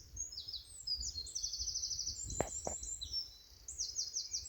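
Several songbirds singing at once, with quick high trills and short repeated phrases overlapping. Two short sharp knocks come close together about two and a half seconds in.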